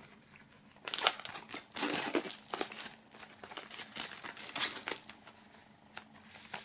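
Clear plastic shrink-wrap crinkling as it is torn open at the seal seam and peeled off a CD digipak by hand. It starts about a second in and goes in irregular crackles.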